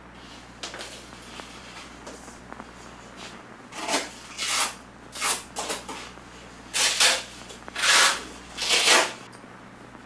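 Fabric of a hammock and its carrying pack rustling as it is handled, in about seven short swishes over the second half.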